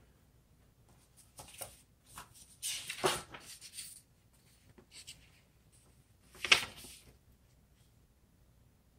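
Hand-handling noises from working on a computer build: scattered rustles and small clicks, with one sharp knock about six and a half seconds in.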